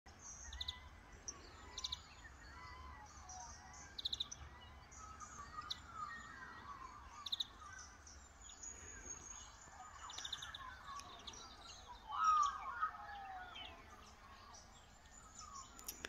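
Birdsong from several birds: short high chirping trills repeated every second or two, and lower gliding warbled calls, with a louder bout of warbling about twelve seconds in.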